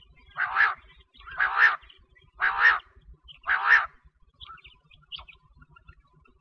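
Quail calling: four quick double-pulsed calls about a second apart, then only faint chirps near the end.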